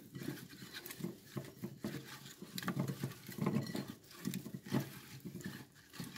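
Hands tossing and rubbing potato chunks dressed in olive oil and lemon juice in a glass bowl: irregular wet squishing and rustling, with scattered light clicks of potato against the glass.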